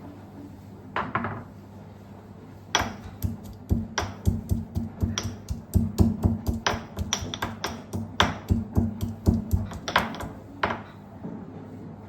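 Kitchen work during chai preparation: a single knock about a second in, then a fast, uneven series of sharp knocks, two or three a second, for about eight seconds, over a steady low hum.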